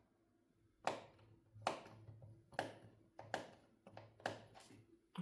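Light handling taps and clicks, about six of them, roughly one a second.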